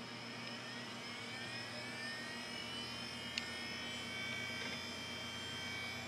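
Desktop PC hard drive spinning up from a stop after a reset: a whine that rises in pitch over about the first three seconds and then holds steady, with a single click a little past three seconds in. Under it runs the steady hum of the computer's fans.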